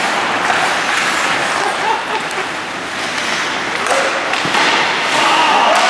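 Live ice hockey play: a steady hiss of skates and sticks on the ice, a few sharp knocks of stick, puck or boards, and players calling out near the end.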